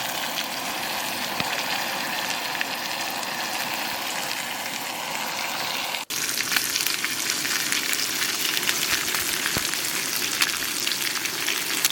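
Grayling frying in butter in a pan: a steady crackling sizzle. It cuts out for an instant about six seconds in and comes back a little louder and brighter.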